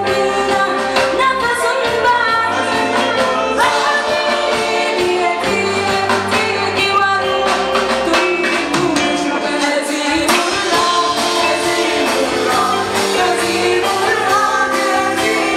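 Live rock band playing: a woman singing lead over electric guitar, bass guitar and a drum kit.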